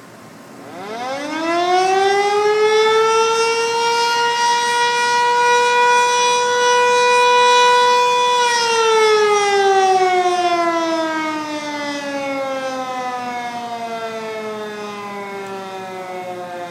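Town outdoor warning siren sounded for its daily noon readiness test. It winds up in pitch about a second in, holds one steady wail for about six seconds, then slowly winds down, falling in pitch and fading but still sounding at the end.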